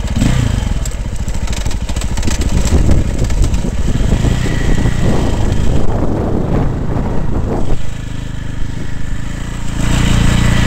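Dirt bike engine revving up and down as the bike is ridden over rough ground, heard from a helmet camera. The engine eases off about eight seconds in, then revs up again near the end.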